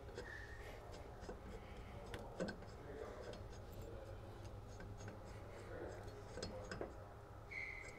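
Faint scattered metal clicks and rubbing as lug nuts are threaded by hand onto the studs of a mower drive shaft flange, over a low steady hum.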